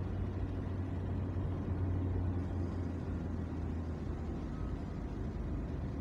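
Steady low rumble of a car driving along a smooth road, engine and tyre noise heard from inside the car.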